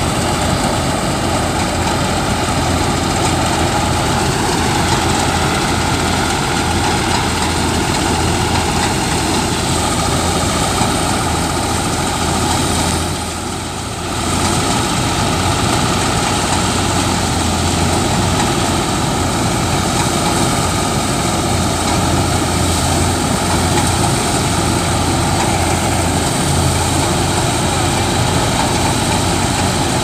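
Tractor-mounted combine harvester running as it cuts wheat: a steady, loud drone of the tractor's diesel engine and the threshing machinery, dipping briefly about halfway through.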